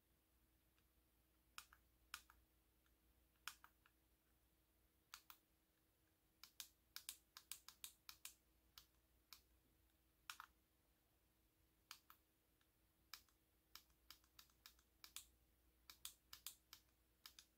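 Small push-buttons on a Floppy Emu disk emulator clicking as they are pressed, scattered single clicks at first, then quick runs of several clicks, as the user steps through its menu of disk images to select a program.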